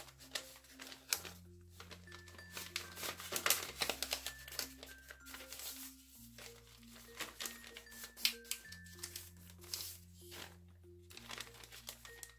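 Many-layered sheet of origami paper crinkling and rustling as it is handled and creased in half, with sharp crackles now and then. Soft background music of slow, stepping notes over a low bass runs underneath.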